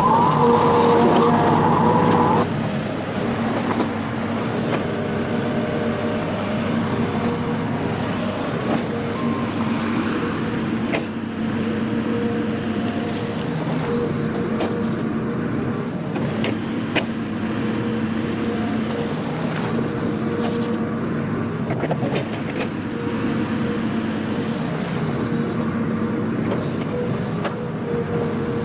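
Hitachi Zaxis 210F amphibious excavator's diesel engine running steadily. It is louder with a higher whine for the first couple of seconds, then settles lower, with a few faint sharp clicks.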